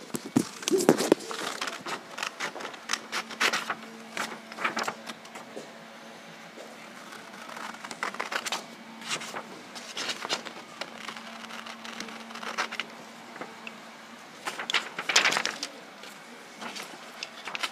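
A sheet of printer paper rustling and crinkling as it is handled, with scattered small knocks. A faint steady hum runs underneath.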